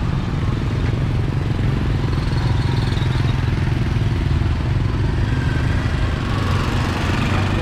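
Street traffic: vehicle engines running close by, a steady low rumble.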